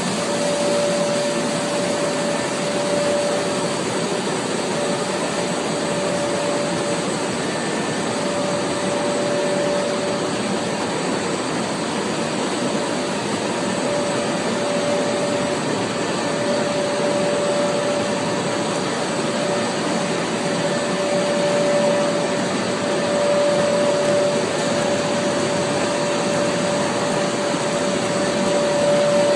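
Honghua HDLF(90-65)×2-1000 multi-layer extrusion coating and laminating machine running at production: a steady, loud mechanical noise with a constant mid-pitched hum tone.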